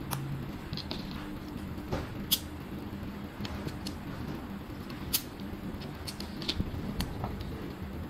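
Small plastic clicks and taps as fiber optic fast connectors are handled and fitted, a handful of sharp clicks scattered through, the loudest about two and five seconds in, over a steady low hum.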